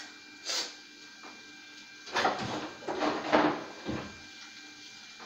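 Kitchen handling noises: a brief scuff about half a second in, then a cluster of scrapes and knocks between about two and four seconds in.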